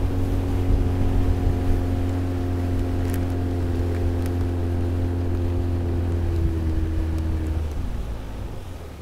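Boat's outboard motor running steadily at speed, with water rushing past the hull. The engine eases off and the sound fades about eight seconds in.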